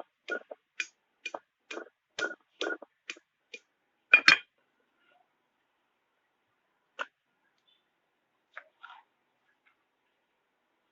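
Light taps or knocks, about two a second for three and a half seconds, then one louder knock about four seconds in and a few scattered clicks later.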